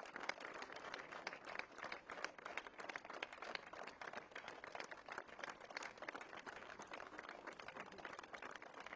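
Applause from a small crowd: many separate hand claps running steadily, fairly faint.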